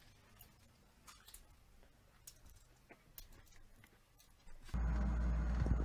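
Near silence with a few faint clicks. Near the end a loud, steady low hum starts suddenly.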